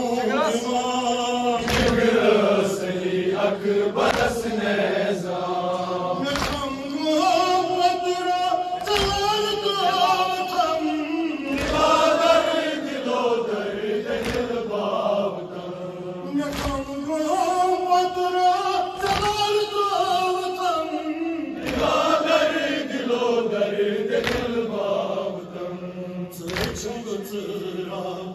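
A male reciter chanting a nauha, the sung Shia lament, in long rising and falling phrases, with other voices joining. A sharp beat about every two and a half seconds marks the rhythm, typical of mourners striking their chests in unison (matam).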